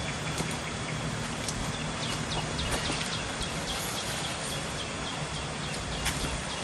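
Footsteps of people walking a forest trail: scattered small crunches and knocks over a steady outdoor hiss, with a thin high tone held throughout.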